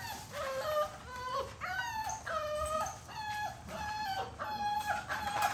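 Six-week-old American bully puppies whining: a steady run of short, high-pitched cries, about two a second, many dropping in pitch at the end.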